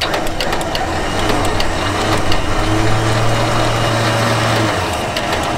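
Electric 4WD winch motor running, spooling synthetic winch rope in through the fairlead: a steady hum that starts about a second in and cuts off near the end, with light clicking from the rope and drum.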